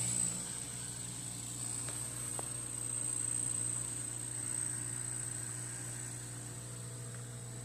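Aquarium filter pump running, a steady low hum with a thin high whine over it.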